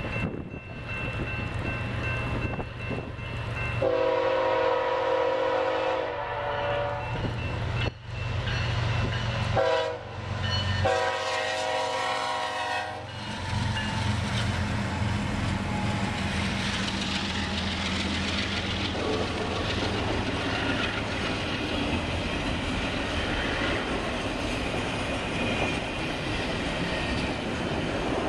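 Diesel locomotive horn on a BNSF intermodal freight train sounding the grade-crossing signal, long, long, short, long, over the engines' rumble as the train approaches. The locomotives then pass, and double-stack container cars roll by with a steady rumble and the clatter of wheels on rail.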